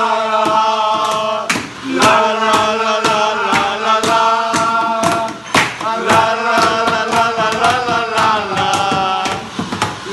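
A group of men singing a tango tune without words, with hand-clapping in time at about two claps a second.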